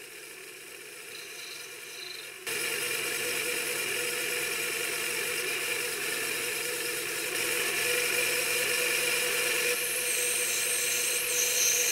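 Metal-cutting bandsaw running, then cutting through metal bar stock: the sound jumps to a louder, steady cutting noise about two and a half seconds in and holds.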